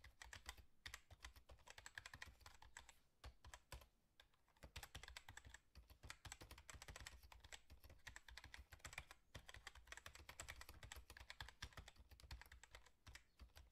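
Faint, dense, rapid clicking and tapping, like typing on a keyboard, with a short lull a little over three seconds in.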